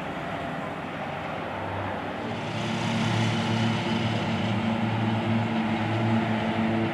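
Formation of Pilatus PC-7 turboprop aircraft flying past, a steady propeller drone that grows louder about two and a half seconds in.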